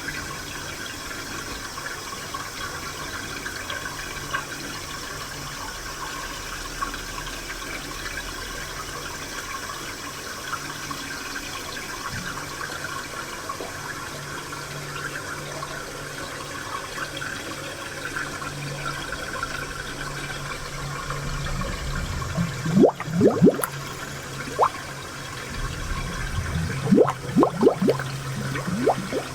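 Spring water flowing and trickling steadily, with louder gurgling splashes in two spells in the later part.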